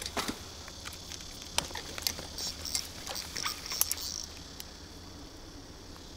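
Steady insect chirring, with a scatter of sharp, irregular clicks and light patters over the first four seconds or so.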